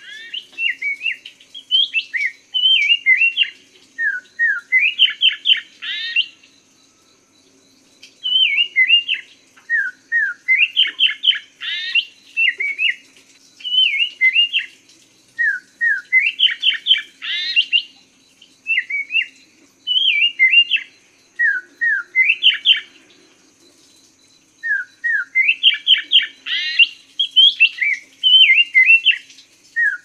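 Poksay mandarin (chestnut-capped laughingthrush) singing: repeated quick phrases of short slurred whistled notes, with two brief pauses.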